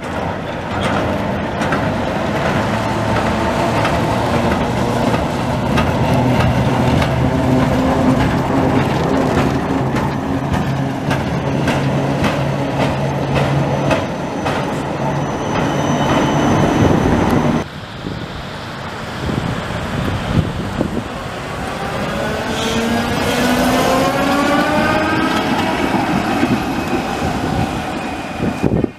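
Vintage electric trams running on wet street rails: steady motor hum with wheel clicks over the rail joints. After a sudden change partway through, a tram's traction motors whine rising steadily in pitch as it picks up speed.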